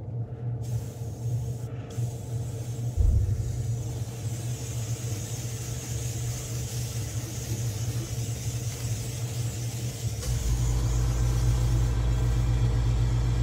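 Airbrush air compressor running with a steady low hum that grows louder about three seconds in and again near ten seconds. A faint hiss of air from the Iwata airbrush spraying paint runs over it through the middle.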